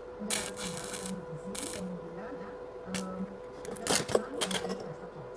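Stick-welding arc crackling and sputtering in short bursts, loudest about four seconds in as sparks spray, over a steady faint hum.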